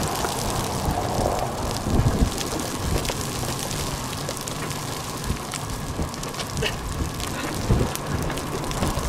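Steady rain with wind noise, scattered sharp ticks of drops striking close by and a few low thumps of wind buffeting the microphone.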